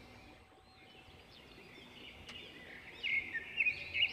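Birds chirping in the background: a string of short chirps that rise and fall in pitch, faint at first and louder about three seconds in.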